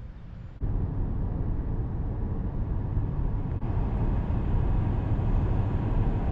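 Steady low rumble and hiss of a car driving, as road and engine noise inside the cabin; it cuts in suddenly about half a second in.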